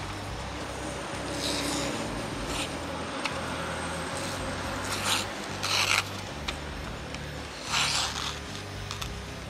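Aitor Skinner JK1 knife blade slicing through a sheet of paper in a sharpness test: about five short scraping cuts, the loudest around five to six seconds in and again near eight seconds.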